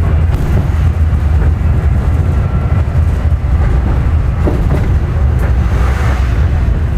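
Tram running along an interurban line, heard from inside the cab: a loud, steady low rumble of wheels on rail and running gear, with a couple of knocks from the worn track about four and a half and five and a half seconds in.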